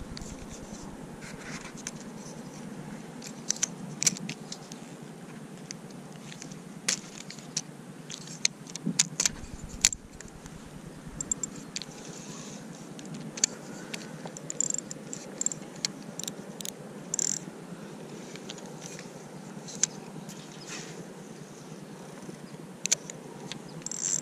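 Irregular sharp clicks and small ticks from handling a spinning rod and reel while fishing, over a steady low background hiss.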